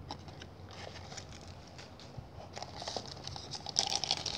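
Clear plastic zip-top bag crinkling and rustling as it is handled, with small scattered clicks; faint at first and louder near the end.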